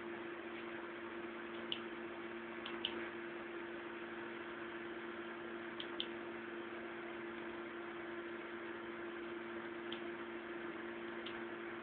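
Steady low hum with hiss, with about seven short sharp clicks scattered through, singly or in quick pairs: the clicking of a laptop's mouse or touchpad buttons while opening photos.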